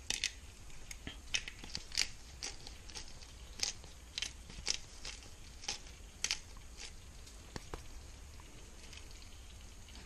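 Hand pepper grinder being twisted, crunching peppercorns in a run of sharp, irregular clicks that thin out and fade after about seven seconds.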